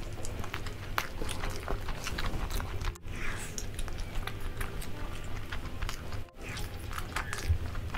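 Close-miked eating of soft roasted chicken: biting, tearing and chewing with many small wet mouth clicks. The sound drops out briefly twice, about 3 and 6 seconds in.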